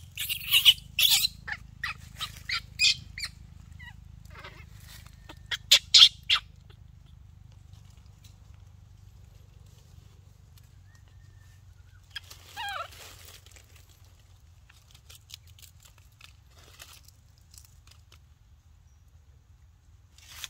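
Baby macaque giving loud, short, high-pitched squeaks in rapid runs over the first three seconds and again about six seconds in, then mostly quiet, with a single call falling in pitch near the middle.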